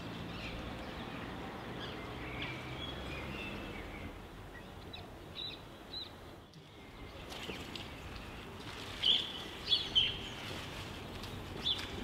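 Outdoor ambience with birds chirping: scattered short, high chirps over a steady low background, with a few louder chirps about nine to ten seconds in.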